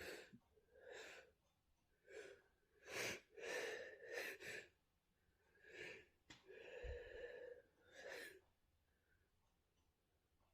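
A person's sharp, breathy gasps and sniffs while working up to a sneeze, about ten short ones in a row with a longer drawn-out one near the seventh second.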